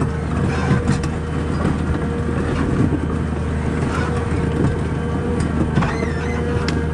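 Heavy forestry machine's diesel engine running steadily under load, with a few sharp knocks.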